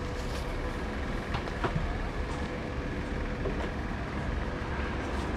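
Outdoor market ambience: a steady low rumble with a faint steady hum and a few light clicks.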